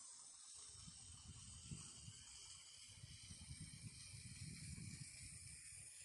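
Garden fountain's water spraying and splashing: a faint, steady hiss, with a low fluttering rumble underneath from about half a second in until near the end.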